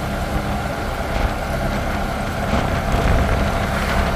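Auto-rickshaw engine running steadily under way, with road noise, heard from on board.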